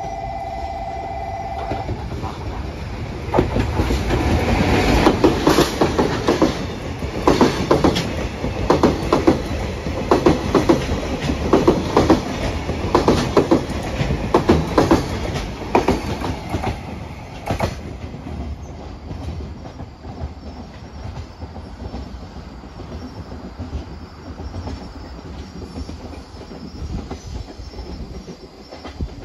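ED76 AC electric locomotive sounds a horn blast of about two seconds as it approaches, then a container freight train passes, its wheels clattering over rail joints for about fifteen seconds before the rumble fades as the train moves away.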